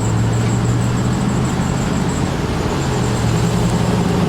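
Steady low mechanical hum with an even background noise and a faint, high, steady whine.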